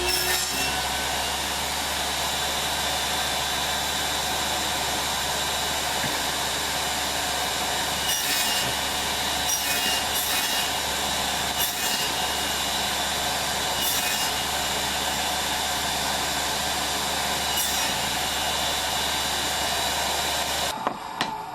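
Table saw running steadily while making repeated shallow passes through wood to cut away waste down to a set depth, with short bursts of cutting in the middle of the run. It is switched off near the end and winds down.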